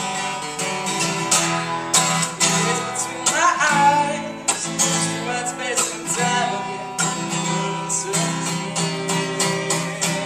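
Acoustic guitar strummed in a steady rhythm, with a man singing over it in places.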